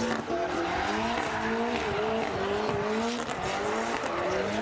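Mitsubishi Lancer Evo's turbocharged four-cylinder engine revving hard, its pitch rising and falling over and over, with tyres squealing and skidding as the four-wheel-drive car spins donuts.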